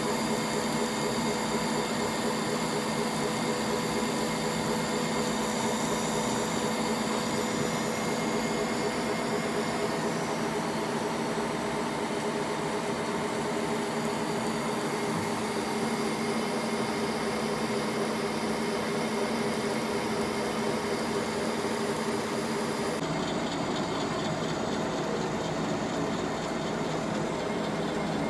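Metal lathe running while turning a steel shaft: a steady mechanical hum and whine from the spindle drive, with a hiss over it. The sound shifts abruptly about three-quarters of the way through, the high hiss dropping away.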